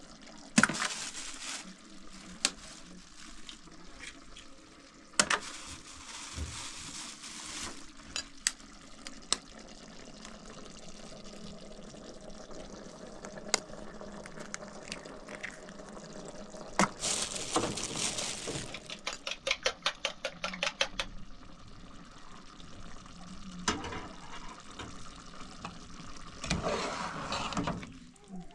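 Kitchen handling sounds: eggs cracked into a small aluminium bowl and beaten with a metal spoon, the spoon clinking rapidly against the bowl, several times a second for a few seconds past the middle. Scattered knocks and short liquid, sloshing noises come between.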